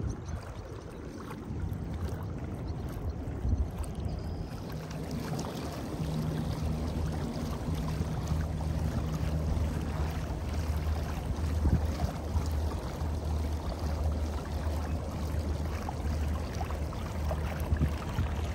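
Water rushing and splashing along the hull of a moving sit-on-top kayak, with wind on the microphone. A low, pulsing hum sets in about five seconds in.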